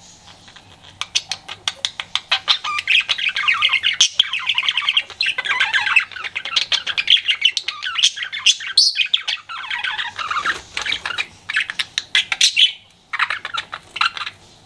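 Pet budgerigar warbling, a fast run of clicks and squawky chirps, the chatter a budgie makes when flirting. It starts about a second in, breaks off briefly near the end, then gives one short last burst.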